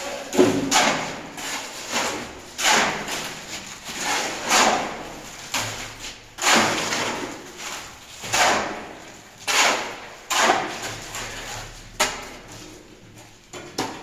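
Shovels scraping up concrete mix off a cement floor and tipping it into a steel wheelbarrow, a gritty scrape about once a second, with the strokes thinning out near the end.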